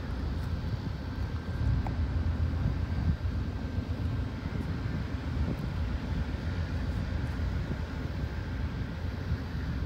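Diesel freight locomotives approaching at a distance: a steady low engine rumble, with a faint thin steady whine above it.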